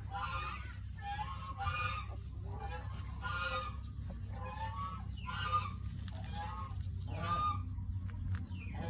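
Newborn puppies crying: short, high-pitched squeals and whimpers, some sliding down in pitch, repeating about once a second. A steady low hum runs underneath.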